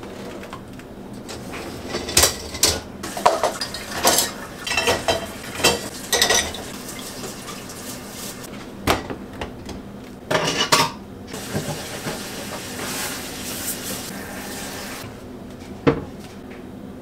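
Dishes, glasses and cutlery clattering as a dishwasher is loaded, with the racks sliding. A tap runs for a few seconds after that, and the dishwasher door shuts with a single knock near the end.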